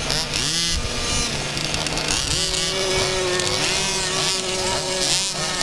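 Several 1/5-scale RC cars' small two-stroke petrol engines running at once, their pitch repeatedly rising and falling as they accelerate and ease off. From about two seconds in, one engine holds a steady note under the others.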